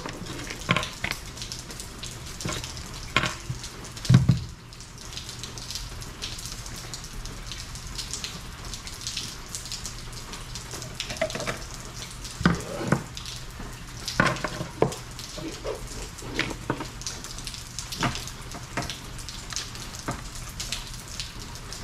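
Steady hiss of heavy rain falling, with scattered clicks, rustles and knocks of cables, a hose and a plastic compressor body being handled on a table; the loudest knock comes about four seconds in.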